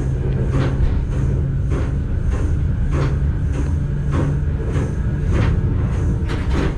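Vintage electric train running on the rails, heard from the driver's cab. There is a steady low rumble and hum, with a sharp tick about every half second.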